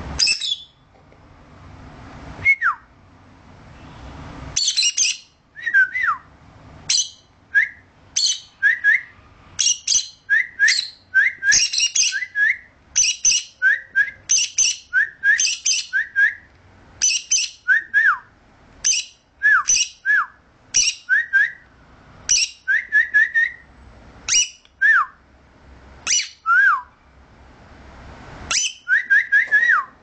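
Peach-faced lovebird calling over and over, loud: harsh, high shrieks, each with short whistled notes that drop in pitch, about once a second, with brief lulls.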